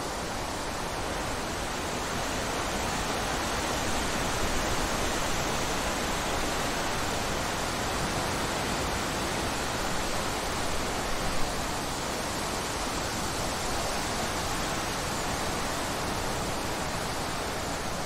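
Wind blowing through woodland trees and undergrowth: a steady rushing noise that swells slightly, with one brief louder gust a little after the middle.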